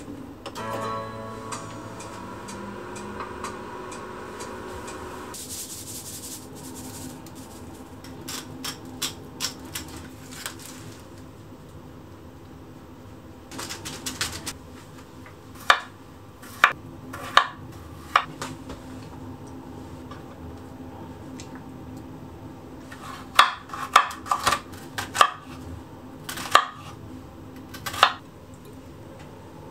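Kitchen food-prep handling: scattered clinks and knocks of a plate and a metal tray, then near the end a quick run of sharp knocks as a knife cuts through an onion onto a wooden chopping board.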